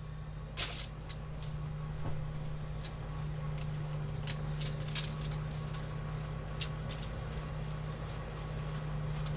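Irregular crinkling, crackling and scraping of foil and butter wrapper being handled while butter is spread, with a few sharper clicks about half a second, five seconds and six and a half seconds in, over a steady low hum.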